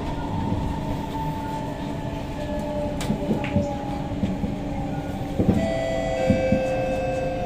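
Cabin sound of a Kawasaki–CRRC Sifang C151A metro train under way: steady rumble with the traction motors' whine as several tones slowly falling in pitch, a new set of tones joining about two-thirds of the way in. A few sharp knocks come from the bogie, part of the weird bogie sounds on this car.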